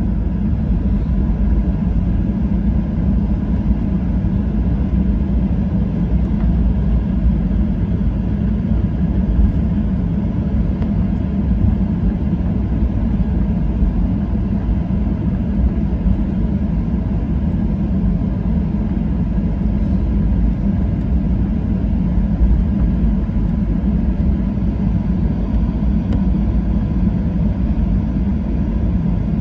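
Steady low rumble inside the cabin of a Boeing 737-800 taxiing, its CFM56-7B jet engines at low taxi power, with a faint steady whine over it.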